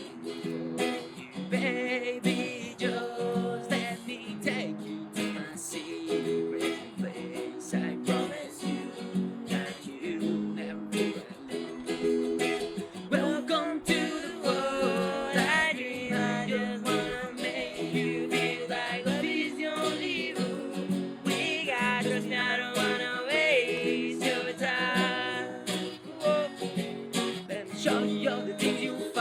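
Live acoustic music: a strummed and picked acoustic guitar playing repeating chords, with a voice singing over it in stretches from about halfway through.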